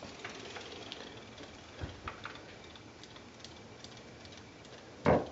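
Faint, irregular light ticking and clicking from battery-powered robotic toy fish swimming in a sink of water. A single short, louder thump comes about five seconds in.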